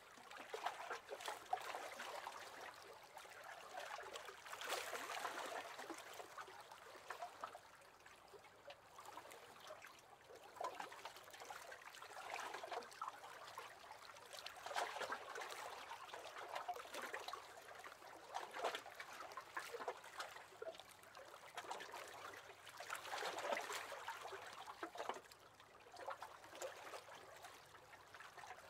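Small waves lapping and splashing gently against the hull of a wooden rowing boat, a soft irregular patter that swells every few seconds.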